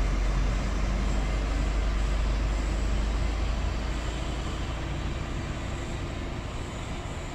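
Mercedes-Benz coach's diesel engine running as the bus pulls slowly away. It is a low rumble that fades gradually over the last few seconds.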